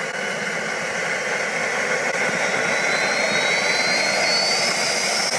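Jet engine spooling up: a steady rushing noise with a thin high whine that slowly rises in pitch.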